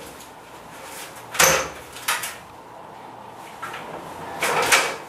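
Stepladder knocking and clunking as it is handled: a sharp knock about a second and a half in, a lighter one shortly after, and more clatter near the end.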